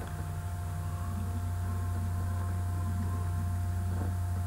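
Steady low electrical hum, with a faint thin steady tone above it.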